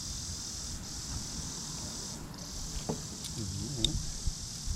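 Steady high-pitched insect chorus, like crickets, briefly dipping twice, with a few sharp clicks in the second half, the loudest near the end.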